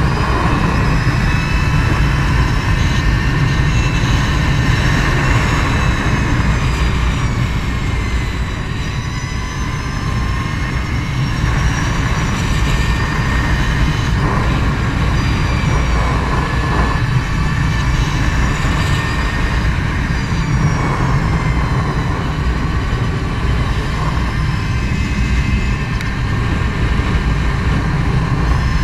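Wind on the microphone at riding speed over the high whine of a 2016 Energica Eva electric motorcycle's motor and drivetrain. The whine slowly falls and rises in pitch several times as road speed changes through the bends.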